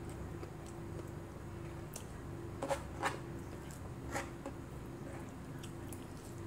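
Eating with the hands: chewing and small wet squishes of rice and fish, with a few short clicks around three and four seconds in, over a faint steady hum.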